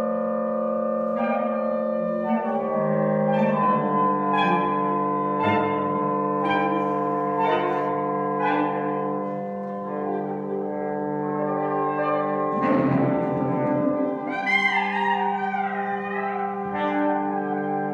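Saxophone ensemble improvising a soundpainting piece: layered, sustained chords with accented entries about once a second. About two-thirds through, a low, rough, buzzing passage comes in briefly, followed by fast, wavering high runs.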